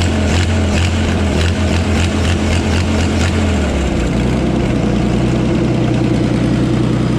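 Power Horse farm tractor engine running at idle with a lumpy beat, which the crew puts down to a hot cam; about four seconds in, its note steps up as the engine speed rises.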